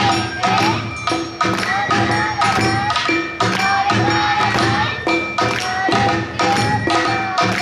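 Awa Odori festival music from a live narimono band: a bamboo flute melody with bending notes over drums and a small hand gong, struck to a steady beat of about two strokes a second.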